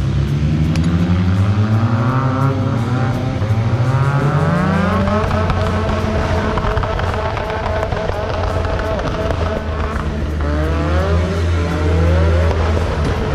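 Off-road 4x4 engine revving under load, its pitch climbing in two long rises over the first few seconds and again near the end, over a steady low drone.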